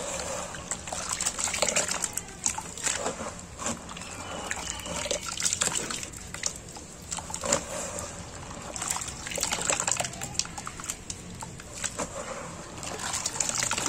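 Wet cement slurry squelching and sloshing as gloved hands squeeze and churn it in a round basin, in irregular waves every second or two.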